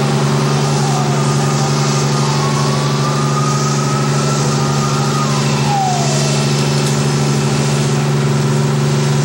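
Fire apparatus engine running at a constant high speed, a strong unchanging drone. A faint thin tone rises and then falls away midway through.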